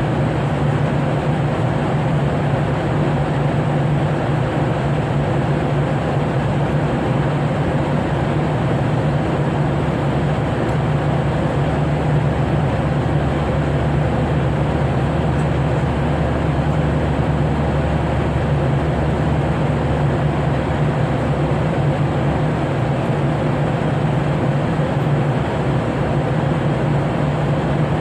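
Steady cabin drone of an airliner in flight: engine and airflow noise with a constant low hum, and a deeper hum joining for a while in the middle.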